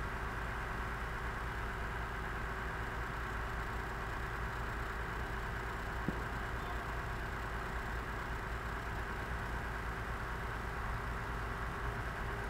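Heavy diesel engine of a mobile crane running steadily, a low even rumble, with one short knock about six seconds in.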